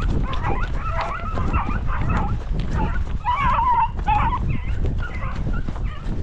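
Hunting beagles yelping and baying in short, wavering calls as they work a rabbit's trail, most intense about halfway through, over a steady low rumble.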